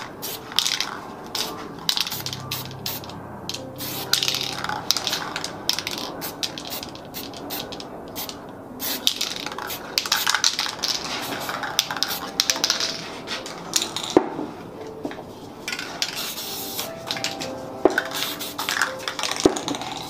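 Aerosol spray paint can hissing in repeated short and longer bursts, with a few sharp metallic clinks of cans knocking together in the second half.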